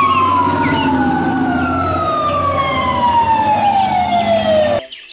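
Fire engine siren wailing in one long, slow fall in pitch, with a second siren overlapping and the low rumble of the truck's engine underneath. It cuts off suddenly near the end.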